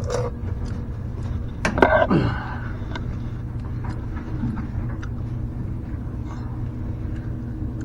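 Steady low hum of a smoke machine's air pump running, pushing smoke into the engine during a smoke test for a vacuum leak. A brief voice-like sound falls in pitch about two seconds in.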